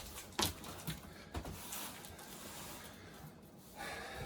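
Handling of cardboard packaging: a few light knocks and taps in the first second and a half, then faint rustling.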